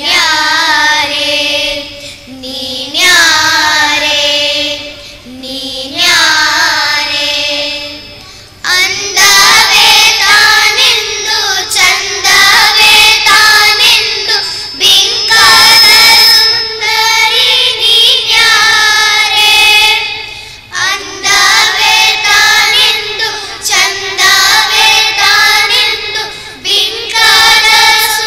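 A group of children singing a Kannada song into stage microphones, with musical accompaniment. The singing grows louder and fuller about nine seconds in.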